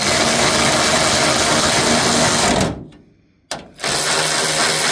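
Hand-held power tool motor, such as a cordless drill or driver, run in two steady bursts. The first lasts a little under three seconds and the second starts about a second after it stops.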